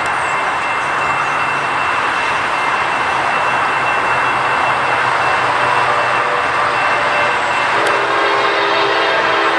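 Train horn sounding a held chord, starting about eight seconds in, over a steady rushing noise.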